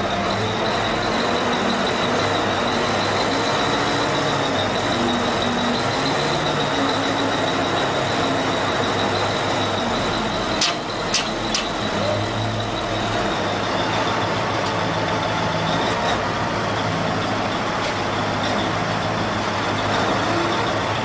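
Caterpillar wheel loader's diesel engine running under load as it pushes a huge stone block onto a flatbed trailer, with a steady high whine throughout. Three sharp clicks come close together about halfway through.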